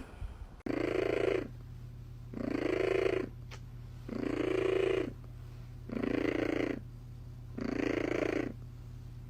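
A cat purring in a slow, even rhythm, swelling about every second and a half, with a steady low hum underneath.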